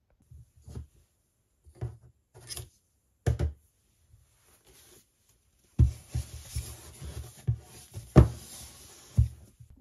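Handling noises on a desk: a few soft knocks in the first few seconds as an object is moved and set down, then from about six seconds in a cardboard retail box is picked up and handled, rustling and sliding with several knocks, the loudest a little after eight seconds.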